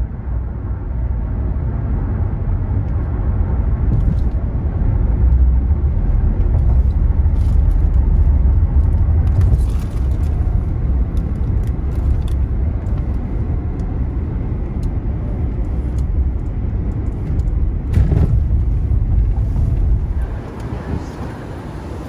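Car driving along, heard from inside the cabin as a steady low road rumble, with a few light clicks, easing off near the end.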